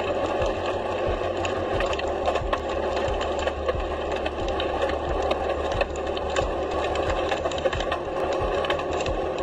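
Rockfall from an earthquake-triggered landslide: stones and grit clatter in a dense stream of small sharp impacts over a continuous rushing noise.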